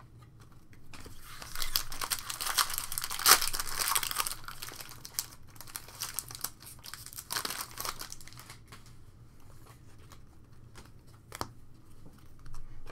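Foil wrapper of a Panini Prizm Baseball trading-card pack crinkling and tearing as it is opened and handled. The crinkling is heaviest from about one to four seconds in, with one sharp crack, comes again briefly around eight seconds, and then settles into lighter rustling and a few clicks.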